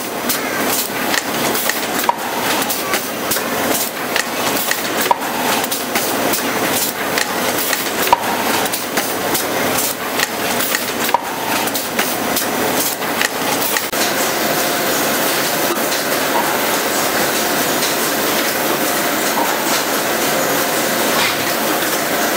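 Automatic rigid box making machine running, a dense mechanical clatter of rapid clicks and knocks. From about two-thirds of the way through it settles into a steadier, more even running noise.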